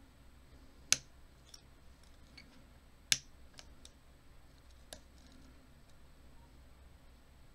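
Lock-picking clicks from a hook pick and tension wrench working the pin tumblers of an American Lock 1100 series padlock: two sharp metallic clicks about a second and three seconds in, with fainter ticks between and after.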